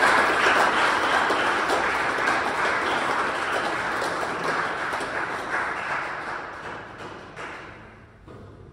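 Audience applauding, a dense patter of many hands clapping that gradually fades out.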